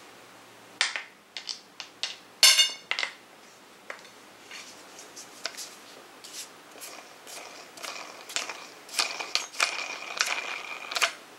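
Metal parts of a CD/DVD storage rack being handled and screwed together: a run of clicks and knocks, the loudest a sharp clank about two and a half seconds in, then lighter clicks and scraping. A thin steady high tone sounds over the last few seconds.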